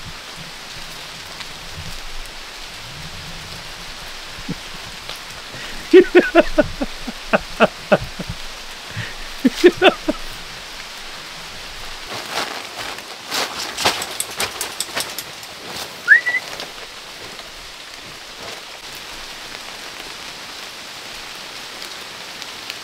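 Steady rain falling. About six to ten seconds in comes a run of short pitched sounds, then a cluster of sharp clicks around thirteen to fifteen seconds, and a single short rising whistle at about sixteen seconds.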